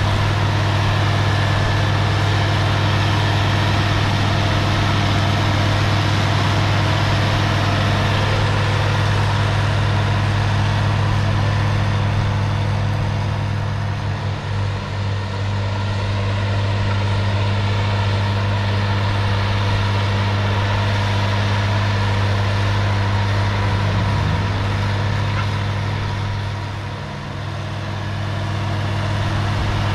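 International Harvester 1566's turbocharged DT-436 six-cylinder diesel running steadily under load while pulling a disk harrow through plowed ground. The loudness dips briefly about halfway through and again near the end.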